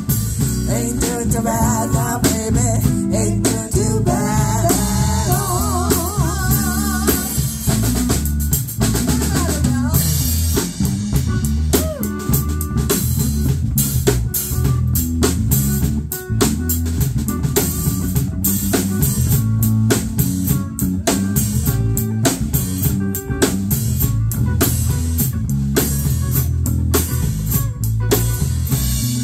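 Live blues band playing an instrumental passage on electric guitars, bass and drum kit. In the first several seconds a lead line wavers and bends in pitch over a steady beat.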